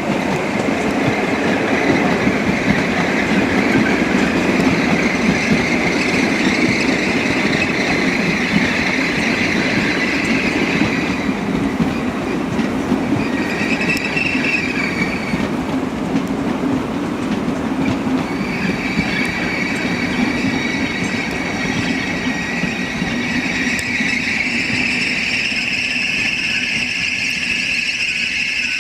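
ICE 4 electric multiple unit rolling along the track, its wheels squealing high over a steady rolling noise. The squeal fades out about a third of the way in, comes back briefly, then returns and grows louder near the end.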